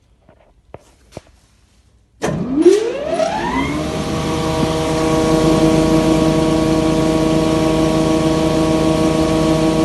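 A few faint clicks, then about two seconds in the freshly overhauled SR4-1 400 mm thickness planer is switched on. Its motor and cutter block spin up with a rising whine and settle into a steady hum at full speed, running on newly replaced bearings.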